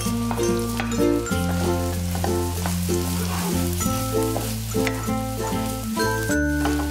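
Shredded chicken and egg sizzling in a hot wok, stirred and scraped with a wooden spatula, under background music with a steady bass line.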